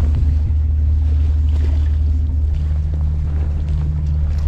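Steady low engine drone, with a faint tone above it that steps down slightly in pitch about halfway through.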